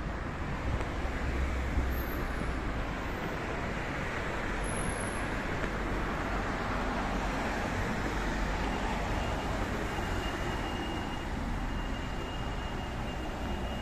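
Steady city traffic noise: cars and vans passing on a busy multi-lane street, with a faint high whine in the later part.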